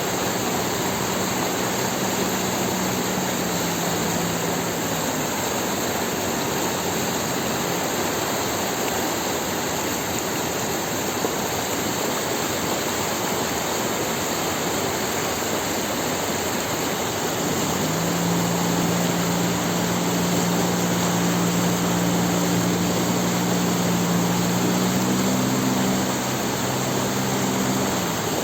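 Outboard motor driving a water-jet unit on a wooden boat, running under way over a steady rushing of water. The engine hum fades early on, then grows louder about two-thirds through and steps up in pitch shortly before the end.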